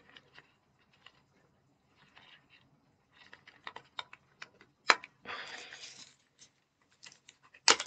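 Hands opening small cosmetic packaging: scattered light clicks and taps, a sharp click about five seconds in followed by about a second of rustling, and another sharp click near the end.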